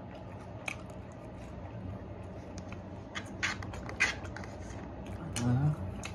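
Eating sounds: a plastic fork clicking and scraping against a plastic takeout container, with chewing, over a steady low hum. A few sharp clicks come about three and a half to four seconds in, and a short low vocal sound follows near the end.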